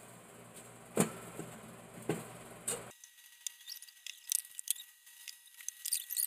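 Wet squishing and crackling of grated coconut being squeezed and kneaded by hand to press out coconut milk. A few sharp clicks come in the first three seconds, then a quick run of small crackles.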